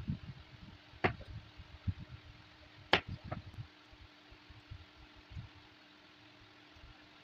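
Steel knife knocking sharply on a wooden cutting board while cutting bottle gourd, loudest about one second and three seconds in, with softer thuds between. After that only faint soft sounds remain while the gourd is peeled with a small knife.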